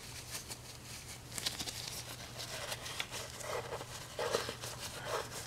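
Paper towel rustling and crinkling as a gloved hand rolls it up and pushes it down into a spark plug well, with scattered light scratches and taps.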